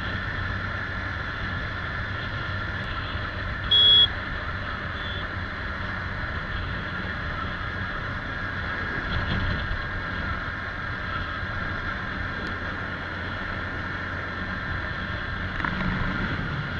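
Motorcycle engine running steadily while riding at speed, with a steady rush of road and wind noise. A short, loud horn beep sounds about four seconds in.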